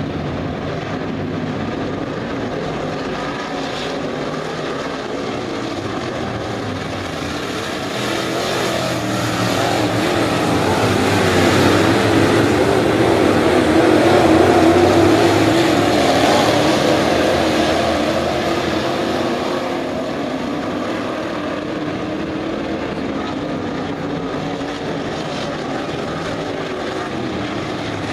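Several IMCA Modified dirt-track race cars' V8 engines running together around the oval. The sound swells to its loudest about halfway through as the cars pass close by, then fades back to a steady level as they move off around the far turns.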